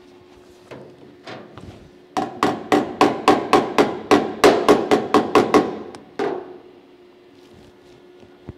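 Hammer striking the steel replacement gutter section on a 1970 Holden HG ute roof, working it into line with the roof. A few separate taps come first, then a fast even run of about fourteen blows at roughly four a second, and one last blow just after six seconds.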